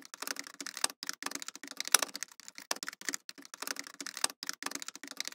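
Rapid, irregular light clicks and taps of fingers handling a small plastic electronic device and its cable plug.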